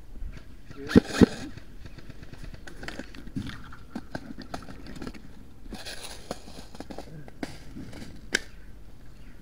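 Rustling and handling noise of an airsoft player moving through long grass with gear, broken by sharp cracks: two close together about a second in and one near the end.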